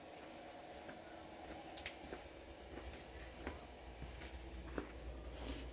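Quiet room tone with a low hum and five or six faint, scattered clicks and light rattles.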